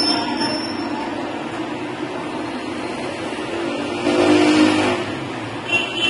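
Steady background road traffic noise, swelling louder about four seconds in as a vehicle passes.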